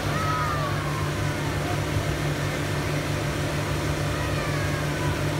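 Motorboat engine running steadily at speed, a low even hum.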